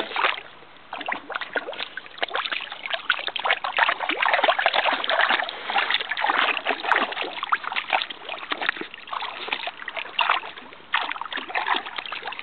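Water splashing and sloshing in a shallow inflatable kiddie pool as a dachshund puppy wades and paws about in it. The splashes come quick and irregular, with a brief lull shortly before the end.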